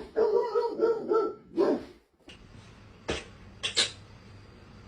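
A dog vocalizing with long, wavering whines for nearly two seconds. After a short break come a few sharp clicks or knocks.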